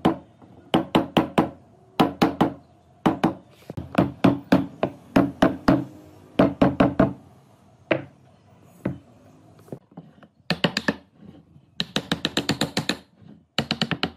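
Hammer blows driving wooden tenoned legs into the mortises of a round wooden hub, in quick runs of four to six knocks with short pauses. The later runs sound brighter.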